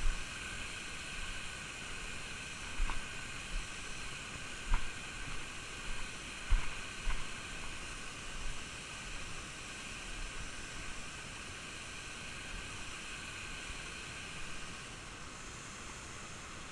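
Steady rushing hiss of a creek and waterfall, with a few dull knocks in the first half.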